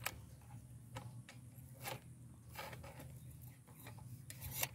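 Faint, scattered light clicks and taps, about six irregular ones, over a low steady hum.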